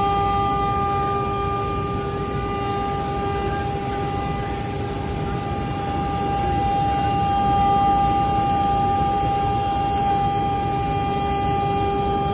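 CNC router spindle running with a steady high whine of several held tones while it carves a turning wooden column on the router's rotary fourth axis, over a constant rushing noise.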